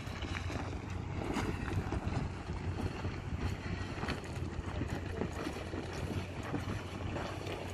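Mitsubishi Pajero's engine running steadily under load as the 4x4 crawls up a steep rocky track, with stones and gravel crunching and crackling under the tyres. Wind buffets the microphone.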